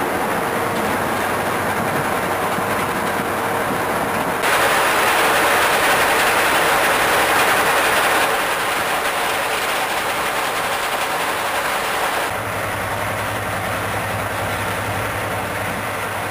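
The Napier Deltic two-stroke opposed-piston diesel engines of a Class 55 Deltic locomotive idling with a steady rattling drone. From about four seconds in, for about four seconds, it is louder, heard from inside the engine room close to the engine.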